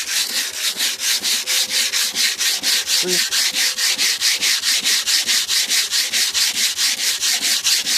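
Sandpaper rubbed by hand on a car's painted steel body, cutting the old paint in quick, even back-and-forth strokes of about five a second, a steady rasping hiss.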